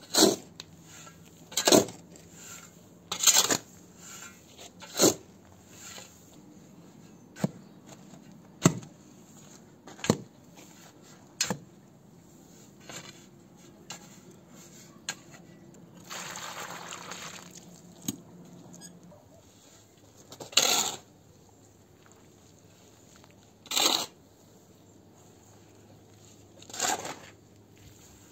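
Metal spade scraping into and turning over a pile of dry soil mixed with chopped straw, dry-mixing it for mud. There are sharp scrapes every one and a half to three seconds, and a longer hiss of about two seconds about midway.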